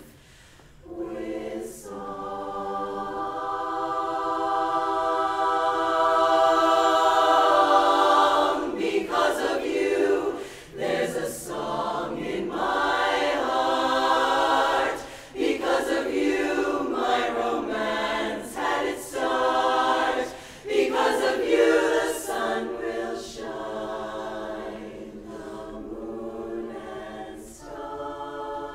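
Women's a cappella barbershop chorus singing close-harmony chords. After a brief silence it opens with a long sustained chord that swells to its loudest about eight seconds in, then moves into shorter phrases with brief breaks between them.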